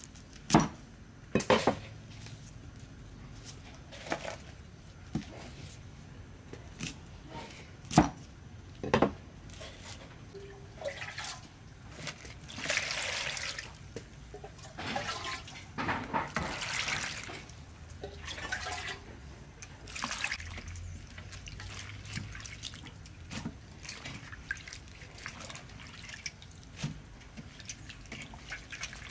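A cleaver chopping pak choi on a wooden cutting board, a handful of sharp knocks in the first ten seconds. Then pak choi being washed by hand in a metal bowl of water: sloshing and dripping as the wet leaves are lifted into a steel colander.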